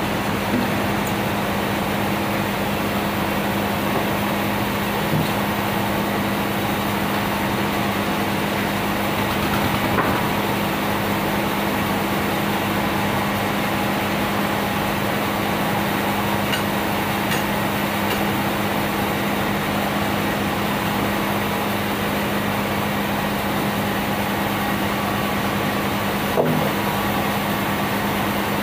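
Large sawmill log bandsaw running steadily with a continuous hum, while red meranti timber is handled around it. A few short knocks stand out, the loudest about ten seconds in.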